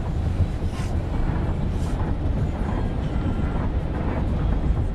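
Steady low rumble of a car driving.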